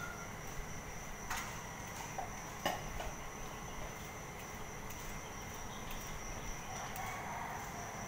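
A steady high-pitched insect drone, with two sharp plastic clicks from toys being handled, about a second in and again near three seconds.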